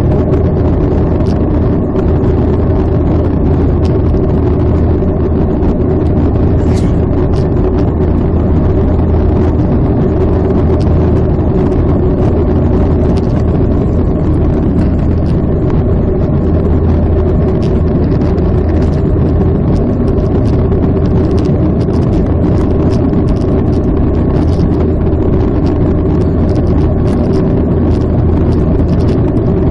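Steady jet engine and airflow noise heard inside the cabin of a jet airliner climbing out after takeoff: a constant low drone with a hum above it.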